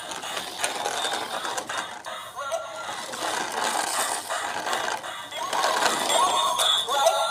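Battery-powered toy stunt car running, its small motor and plastic gearbox whirring and clattering with sharp clicks as it tips, flips and spins its wheels on pavement. Electronic music with short rising tones plays over it.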